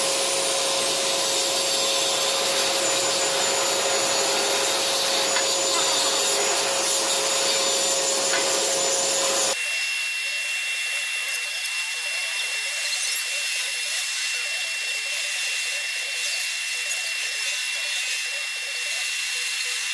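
Steady hissing noise with a constant whine. About halfway through it cuts off abruptly into a thinner, higher hiss carrying a high steady tone.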